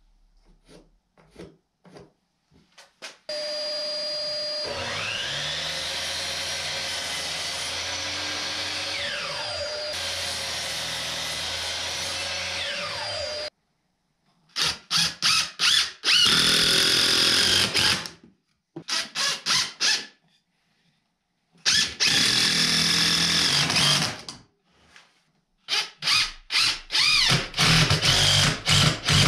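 DeWalt cordless drill running steadily for about ten seconds, its whine rising at first, as it drives screws into 2x4 blocks. Then a cordless impact driver runs in several groups of quick short trigger pulls and longer runs.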